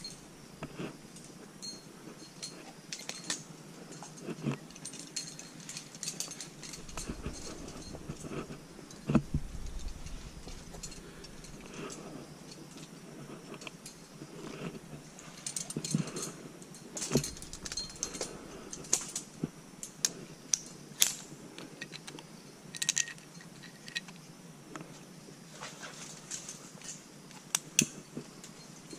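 Metal climbing gear (carabiners and quickdraws on a harness) clinking and jingling in irregular bursts as a lead climber moves up the rock, with scattered scrapes and taps.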